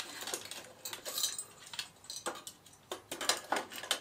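The brass windscreen of a Svea 123R petrol stove being lifted off the stove's body, giving a series of light metallic clicks and scrapes.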